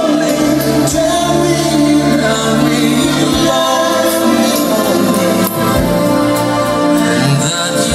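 Recorded music with singing played through a hi-fi system's bookshelf loudspeakers, driven by a Technics SE-A100 stereo power amplifier.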